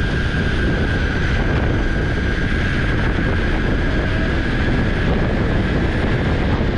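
Electric skateboard climbing a hill at speed: loud wind rumble on the GoPro's microphone, with a steady high-pitched whine from the board's motors over it.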